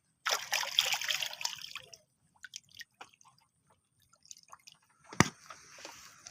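Water splashing and sloshing in a loud burst, then scattered drips and small clicks. A sharp knock comes about five seconds in, followed by softer splashing.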